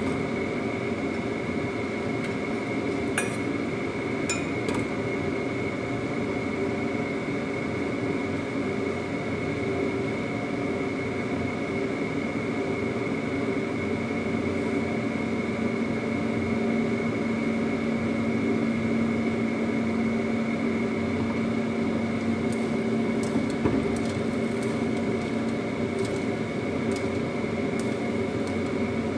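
Steady machine hum with a thin high whine from a kitchen appliance running while a lidded wok cooks on the stove. Near the end come a few clinks and knocks of metal in the wok as the luffa is stirred with a spatula.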